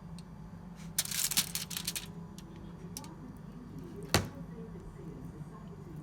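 Kitchen handling noises: a crinkling rustle lasting about a second, starting a second in, then a single sharp knock about four seconds in, over a low steady hum.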